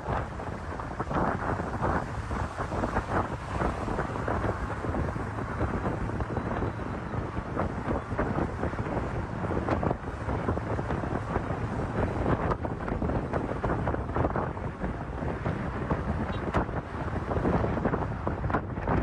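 Wind buffeting a phone's microphone over the rumble of a passing road and traffic, a rough, unbroken noise.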